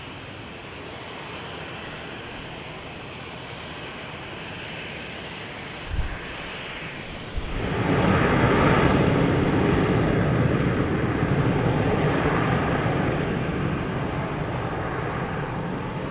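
Jet airliner's engines on the runway: at first a steady, moderate jet noise with a short low thump about six seconds in. Then the noise jumps up suddenly and becomes a loud, deep jet rumble that slowly fades away toward the end.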